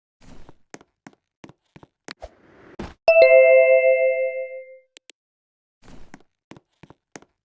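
Scattered light clicks and taps, then a single bell-like ding about three seconds in that rings out for about a second and a half and fades away.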